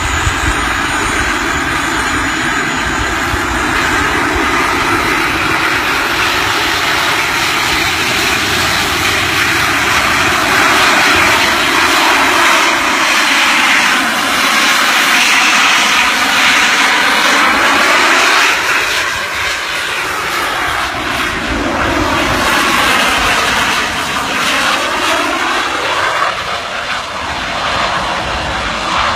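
Jet-powered hoverboard's small turbine engines running at full thrust in flight: a loud, steady jet roar. Its tone swells and sweeps as the board climbs and moves across the sky, and it dips a little in level about two-thirds of the way through.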